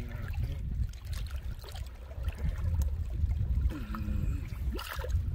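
River water sloshing and lapping around people wading chest-deep, with a steady low rumble underneath.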